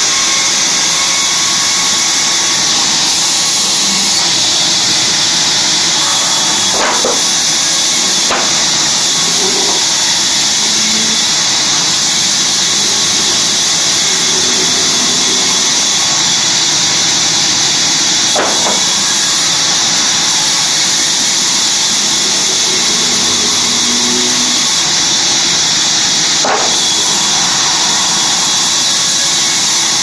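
Sawmill band saw running and cutting wood: a loud, steady high hiss, with four sharp knocks along the way.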